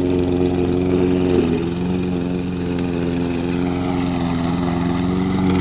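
Briggs & Stratton OHV engine of a walk-behind lawn mower running steadily, its pitch dipping slightly about a second and a half in.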